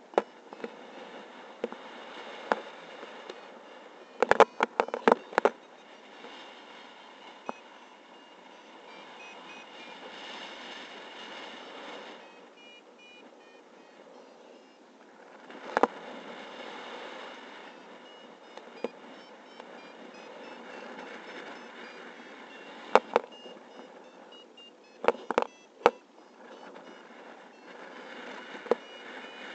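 A paragliding variometer beeping in short tones that step up and down in pitch, its climb tone, over a steady rush of wind on the microphone that swells and fades. Sharp knocks and pops come in clusters, loudest about four seconds in and again near the end.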